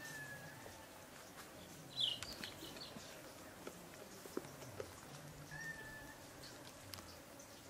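Quiet eating sounds: scattered small clicks of hands and plate while two people eat by hand. Short faint high bird calls come through in the background, with one sharper chirp about two seconds in.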